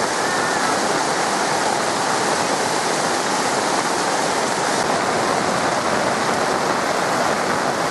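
Fast-flowing floodwater rushing in a strong current, a steady loud rush with no break.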